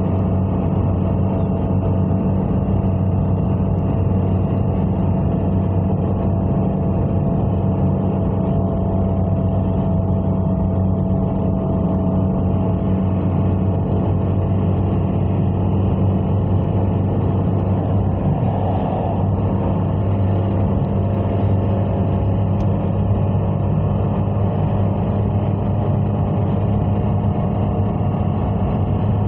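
Car driving at a steady speed: an even engine and road drone that holds its pitch throughout.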